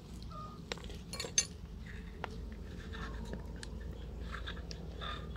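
Light clicks and scrapes of a plastic keyless drill chuck and drill being handled as the chuck is fitted onto the drill, with one sharper knock about a second and a half in.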